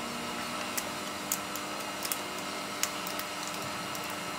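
Steady background hum and hiss with a few faint, short clicks scattered through it.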